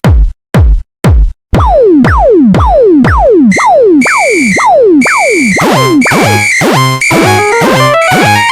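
Electronic dance music built on a drum-machine kick drum with a sharply falling pitch. Three separate kicks start it off, then a steady beat of about two kicks a second sets in. A repeated high beep joins in, and a quick synth melody enters over the beat in the second half.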